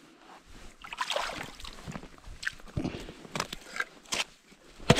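Wet set line being hand-pulled up through a hole in the ice and handled: rustling and light sloshing of water, with several sharp clicks in the second half.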